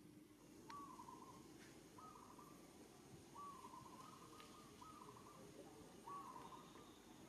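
Faint bird calling in the background: one short call, repeated about once every second or so.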